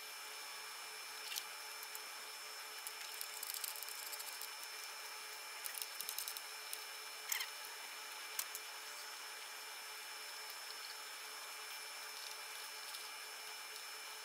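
Scattered faint clicks and taps of hand tools and metal parts being handled while a lawn tractor's corroded starter-solenoid connection is taken off, over a steady background hiss.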